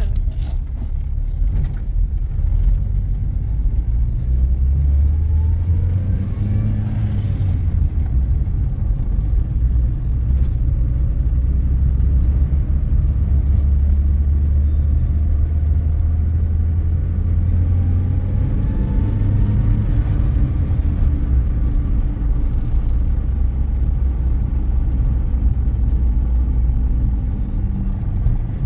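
Car engine and road noise heard from inside the cabin while driving: a steady low rumble, with a faint whine that rises in pitch a couple of times as the car picks up speed.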